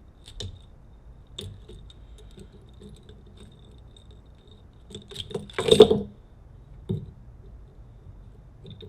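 Small metal clicks and taps from hand tools working on a door lock cylinder, with a louder clatter of metal on metal a little past halfway and a single click about a second after it.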